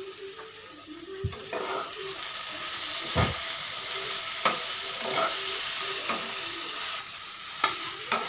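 Potatoes and spice paste sizzling in a nonstick kadai as a spatula stirs them, scraping and knocking against the pan several times. This is the masala and potatoes being fried together (kosha).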